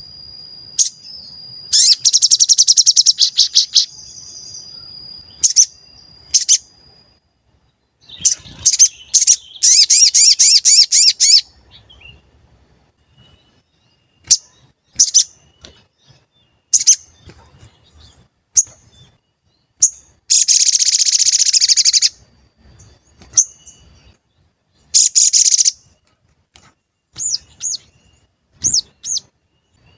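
A sogon bird singing its rapid high 'cuit cuit' chirps. Runs of fast trilled notes about two seconds long come several times, with single short chirps and pauses between them. It is a lure song meant to set off a listening sogon to answer.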